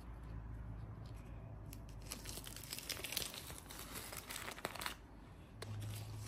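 Baking parchment being peeled off the bottom of a baked sponge cake: crinkling, tearing paper, busiest in the middle few seconds.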